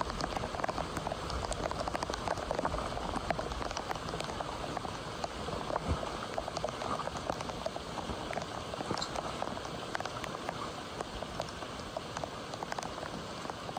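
Heavy rain falling, a dense patter of countless drops, easing slightly about halfway through.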